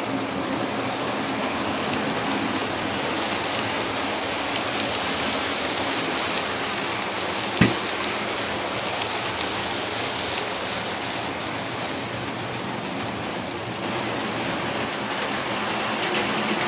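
Model trains running on a model railway layout: the steady whirr of motors and wheels on the track as a model container freight train passes. There is light rapid ticking during the first five seconds and one sharp click about seven and a half seconds in.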